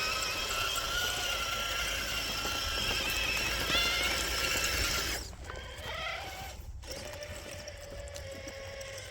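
Traxxas TRX-4 crawler's electric motor and drivetrain whining as it crawls in low gear on Deep Terrain Traxx rubber tracks. The whine rises briefly in pitch a few seconds in, then drops to a quieter, lower whine about halfway through.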